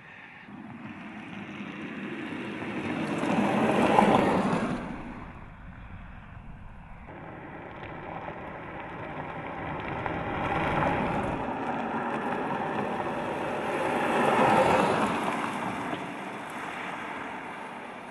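A car driving past twice, a rush of tyre and wind noise that swells and fades each time.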